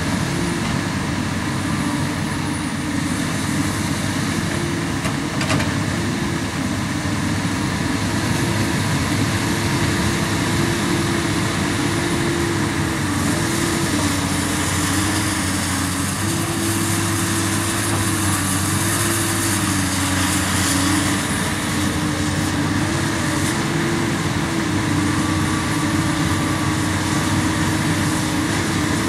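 Komatsu PC200 hydraulic excavator's diesel engine running steadily under working load. Its pitch steps up and down slightly as the machine digs and swings.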